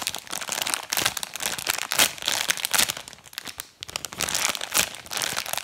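Clear plastic packaging crinkling as two squishy toys are squeezed inside their sealed bags, an irregular run of crackles with a few louder peaks.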